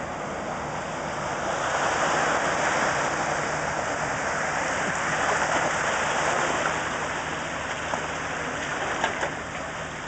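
Rushing, splashing river water churned up as a four-door Jeep Wrangler wades through a river, swelling about a second and a half in and easing slightly toward the end.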